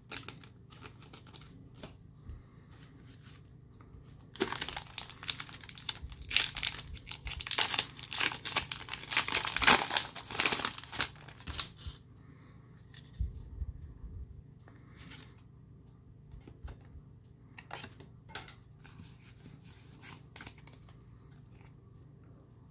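A Pokémon trading-card booster pack's foil wrapper being torn open and crinkled for several seconds, starting a few seconds in. Fainter clicks and rustles of the cards being handled before and after.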